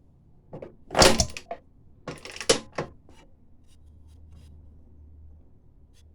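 Metal clunks and rattles from a 1946 Atco cylinder lawnmower being worked by hand. The loudest group comes about a second in, and a second group about two and a half seconds in.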